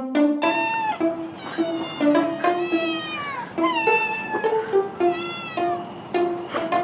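Young orange kittens meowing over and over in high, thin kitten voices, one call after another with rising-and-falling pitch. Light background music with plucked notes plays underneath.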